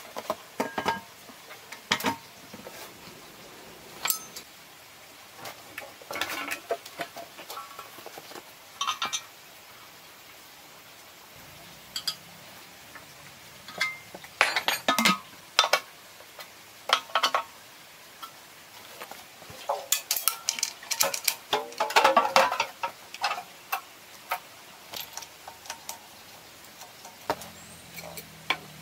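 Metal hand tools knocking and clinking against the metal parts of a single-cylinder diesel engine as it is assembled. The sharp metallic knocks and rings come irregularly, busiest about two-thirds of the way through.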